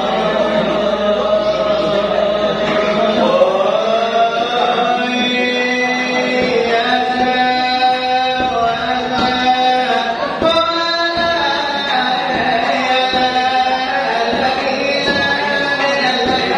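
Salawaik dulang: Minangkabau vocal chanting in long, gliding held notes, over the light struck rhythm of a brass tray (dulang) beaten by hand.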